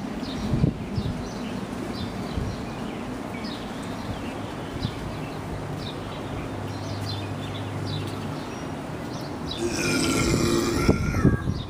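A man lets out a long, loud belch near the end after chugging malt liquor from the bottle.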